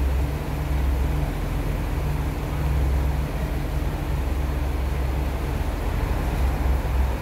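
JR Shikoku 1500-series diesel railcar pulling out of the station under power, its diesel engine giving a steady low drone.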